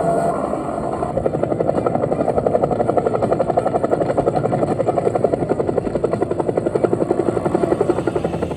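A steady, rapidly pulsing mechanical drone, beating about ten times a second.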